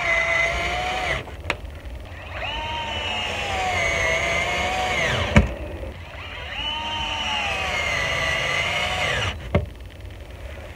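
Power drill running in three bursts of two to three seconds each, its whine rising as it spins up and dropping as it stops, with a sharp knock at the end of the second burst and small clicks between runs.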